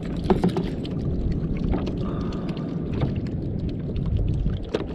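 Steady wind and water noise on a jet ski drifting at sea, with a few light clicks and knocks from handling a fishing line and bait jig.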